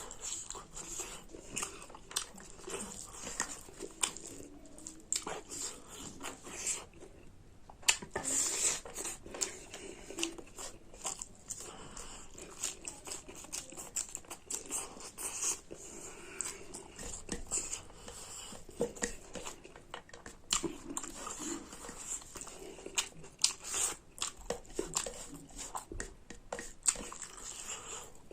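Close-up chewing and eating sounds: irregular wet smacks, bites and crunches of a person eating pork curry with rice.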